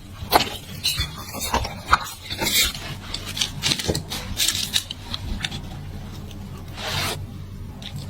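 Kitchen food-preparation scraping: many short rasping strokes in quick, irregular succession over a low steady hum, with one longer stroke near the end.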